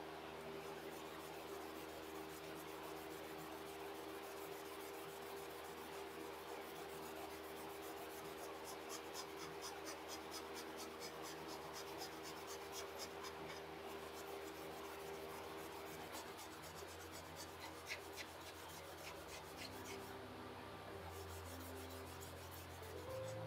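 Abrasive pad rubbing in quick back-and-forth strokes over the torch-charred surface of a beech wood stand, a faint dry scratching.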